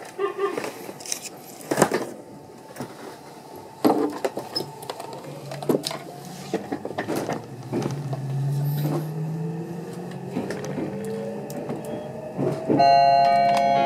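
Meitetsu 2000 series μSKY electric train pulling away, heard from inside the car: a few knocks and clatters, then the traction motors' whine rising steadily in pitch as the train accelerates. Near the end an onboard chime begins.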